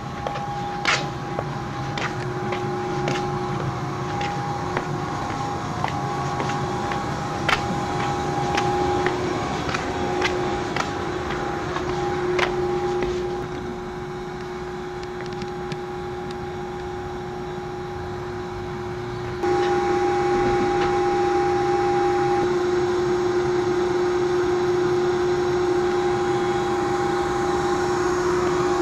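Steady electric hum of a standing KuMoHa 42 electric railcar, with scattered sharp clicks and taps over the first dozen seconds. About two-thirds of the way in, the sound jumps suddenly to a louder, even hum heard from inside the car.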